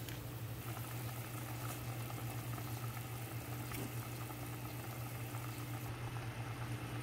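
Ramyeon broth at a rolling boil in a pan, bubbling steadily, over a low steady hum.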